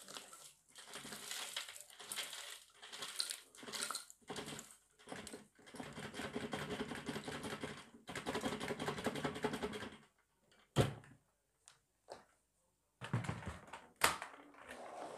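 Dry mess of cereal, pasta and crumbs on a shag rug crunching and crackling in uneven bursts for about ten seconds, then a few separate sharp clicks.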